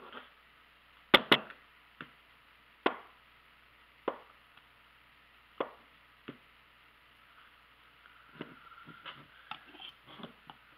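Kitchen knife cutting through a stick of butter onto a cutting mat on a countertop, with a ceramic mug being handled: single sharp knocks on the counter about a second apart, the loudest two in quick succession about a second in. Near the end come quicker, lighter taps and clinks as the butter pieces go into the mug.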